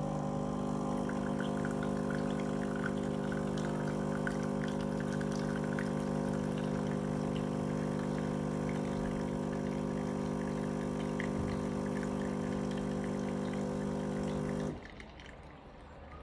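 Ninja coffee maker brewing: its pump hums steadily while coffee streams and trickles into the cup. The pump cuts off suddenly near the end, leaving a faint drip.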